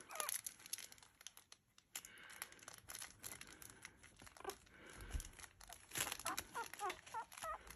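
Fabric crinkle toy crackling faintly in scattered bursts as newborn Havanese puppies crawl over it and nose it. A few short, rising high squeaks from the puppies come near the end.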